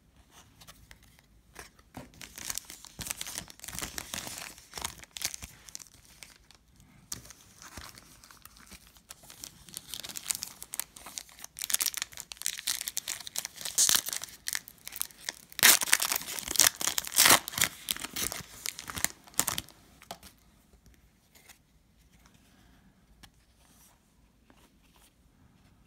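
Foil trading-card pack being torn open and crinkled, in irregular bursts that are loudest a little past the middle. It dies down to faint handling near the end.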